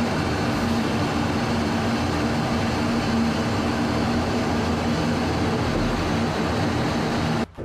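Military jet aircraft engine noise, steady and loud, with a constant low hum under it. It cuts off suddenly near the end.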